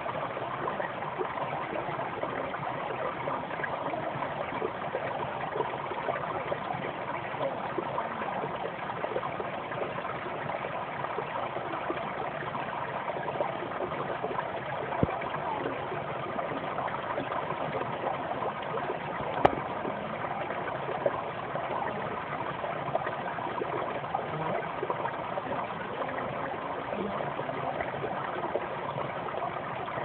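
Shallow, rocky brook babbling: a steady rush of water running over stones, with a couple of brief clicks partway through.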